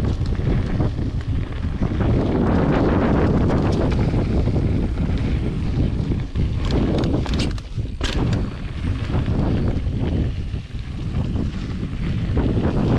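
Strong wind buffeting the microphone, a loud rumbling rush that eases briefly about eight and eleven seconds in.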